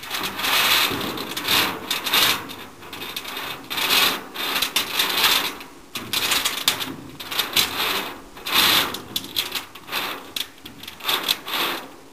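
A toy vehicle with a trailer rattling and scraping as it is pushed back and forth, in irregular bursts about every second.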